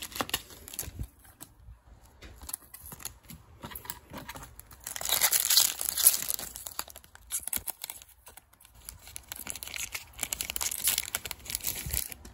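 Foil booster-pack wrapper crinkling and being torn open, with two louder bouts of crinkling about five seconds in and about ten seconds in.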